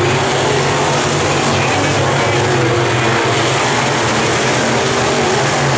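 Dirt-track race car engines running together as the cars circle the oval, a loud, steady drone with no breaks.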